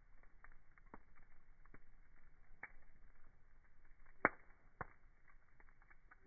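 Wood fire crackling, with irregular small pops and one sharper pop about four seconds in.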